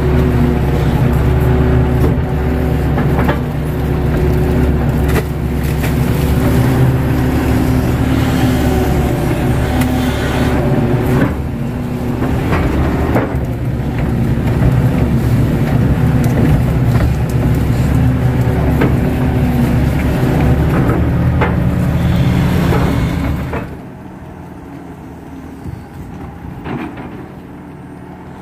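Kato HD512E crawler excavator's diesel engine running under load while it digs, heard close from the cab, with a few knocks from the bucket and arm. About 24 seconds in, the sound drops suddenly to a quieter engine hum heard from farther off.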